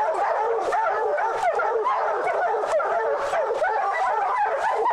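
A pack of bear hounds barking and bawling without a break, many voices overlapping: hounds baying treed on a bear.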